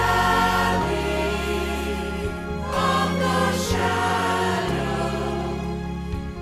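Church choir singing together in parts, with sustained low accompaniment notes beneath the voices.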